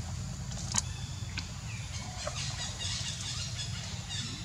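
Steady low rumble with a few sharp clicks, then a run of rapid, high-pitched chirping calls about two seconds in that lasts for over a second.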